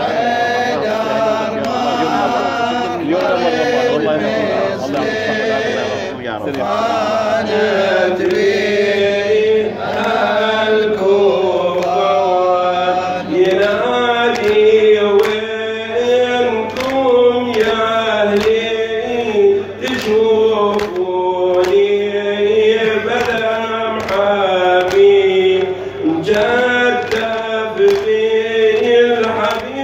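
A male radood chanting a nawha, a Shia lament, in Arabic into a microphone, his voice in long, sliding melodic lines. From about halfway through, a steady rhythm of sharp strikes keeps time under the chant.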